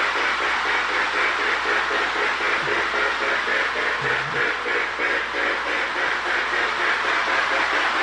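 Marx 1666 Camelback toy steam locomotive running on O gauge track while pulling a long train of log dump cars. Its electric motor gives a steady whine, the wheels clatter on the rails, and the sound tender adds a regular pulsing chuff.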